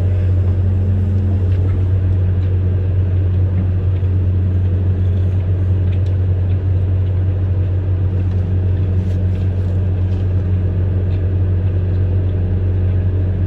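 Amphibious excavator's diesel engine running steadily at a constant low drone, with a few faint scattered clicks over it.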